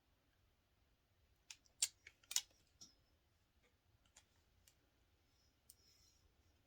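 A quick cluster of sharp plastic clicks and snaps from hair-styling tools being handled, then a few faint ticks.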